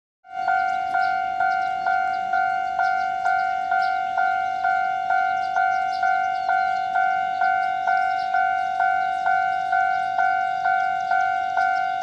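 Railway level crossing warning bell ringing in an even, steady rhythm of about two strikes a second, each strike fading slightly before the next: the alarm that a train is approaching while the barrier arms come down.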